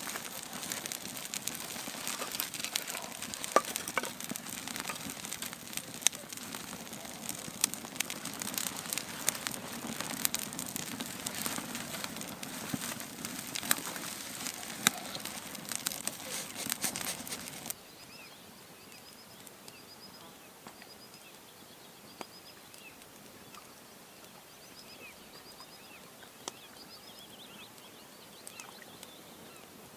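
Wood campfire crackling with frequent sharp pops. About eighteen seconds in it cuts abruptly to a much quieter scene where a small bird sings short, high, repeated chirps.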